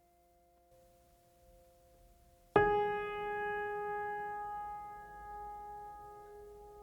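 Ambient music: faint held tones, then a single note struck about two and a half seconds in that rings out and slowly fades.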